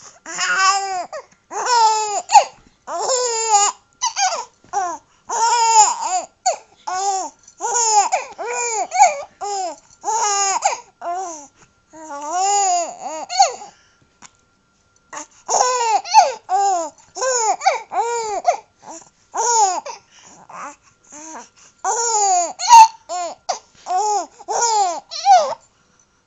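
A baby laughing and babbling in short, high-pitched bursts, two or three a second, with a pause of about a second and a half in the middle. A single sharp tap sounds near the end.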